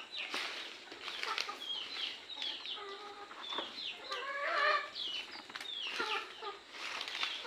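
Desi (country) chickens clucking and calling, many short calls that slide downward, repeating throughout, with a louder burst of calls about four and a half seconds in.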